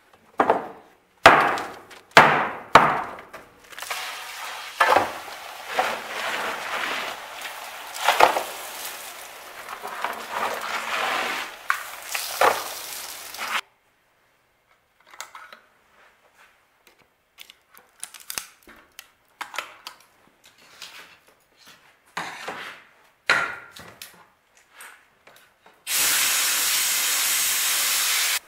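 Chunks of dry ice knocking and clinking into a metal pan, followed by a fizzing hiss with scattered clinks as liquid is worked into them to make a cryo slurry. After a sudden near-silence with a few small clicks, a steady hiss lasting about two and a half seconds starts near the end.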